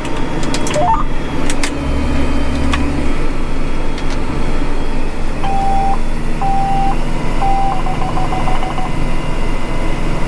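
Tractor engine running steadily under load while pulling a planter, with an electronic alert beeping from about halfway in: three short tones, then a quick run of rapid beeps.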